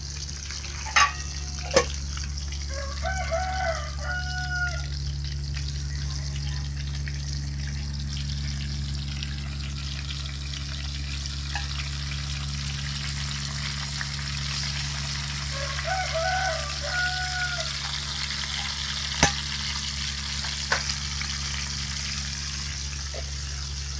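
Jackfruit pieces sizzling steadily as they fry in oil in a pan, over a low hum. A rooster crows twice in the background, about three seconds in and again about sixteen seconds in. There are a few sharp clicks of utensils.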